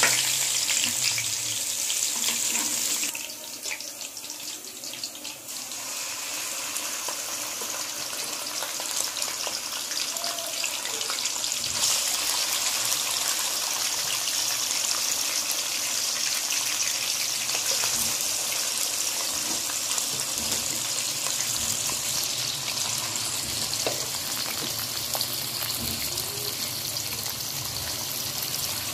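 Hot cooking oil sizzling in a wok as onions and chunks of liver fry, a steady hiss that dips for a few seconds about three seconds in.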